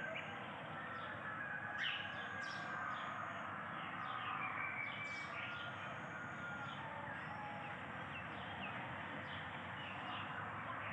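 Birds chirping and calling over a steady outdoor hiss, with many short chirps and brief whistled notes scattered through.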